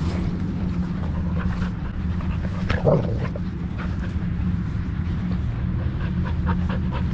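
A pit bull panting close to the action camera strapped to its harness while it moves, over a steady low rumble of movement and wind on the microphone. There is a brief louder sound about three seconds in.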